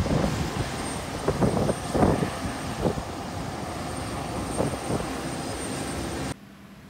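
Jet aircraft engine noise on an airport apron: a steady loud rush with a thin high whine and a few louder swells. It cuts off abruptly near the end, giving way to a much quieter low hum.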